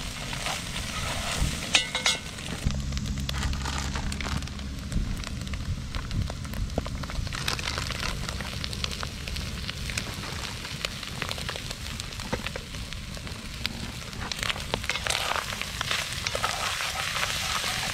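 Bacon, potatoes and eggs frying in a cast iron Dutch oven over a campfire: a steady sizzle with scattered crackles, and a wooden spoon stirring through the food at times.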